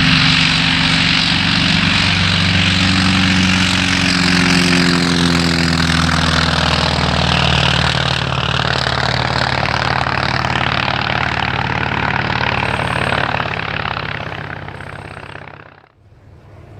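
Propeller aircraft engine running loud as the plane flies past, its drone falling in pitch. It fades away and cuts off sharply about a second before the end.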